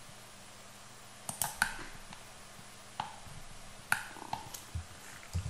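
Computer mouse and keyboard clicking as Blender is worked: a quick run of three clicks about a second in, then single clicks spread through the rest, over a faint steady hum.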